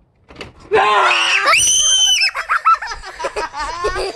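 A girl screaming in fright: a loud, very high-pitched shriek starts about a second in, then trails off into shorter wavering cries.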